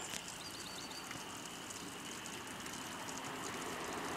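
Steady outdoor hiss of flowing stream water, with a quick run of faint high ticks about half a second in.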